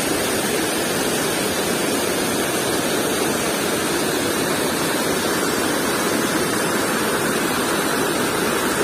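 Shallow river water flowing steadily over and around rocks, a constant rushing.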